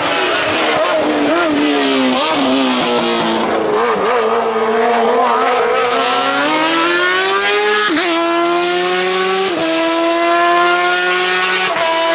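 Hill-climb race car's engine accelerating up the course. The revs waver through the hairpin, then rise steadily and drop abruptly at each gear change, about 8 and 9.5 seconds in, before climbing again.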